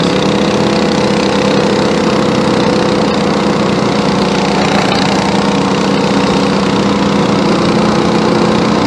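Worn-out 212cc single-cylinder go-kart engine running at a steady pitch, held wide open during a top-speed run. The engine is tired, with heavy blow-by.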